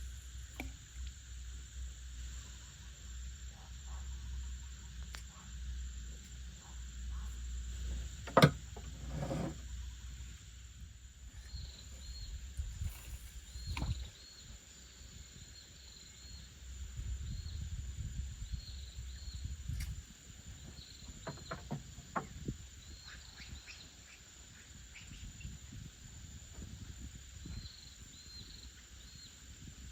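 Insects chirring with a steady high-pitched drone. Short repeated chirps come in about a third of the way through, over a low rumble. A single sharp knock comes about eight seconds in.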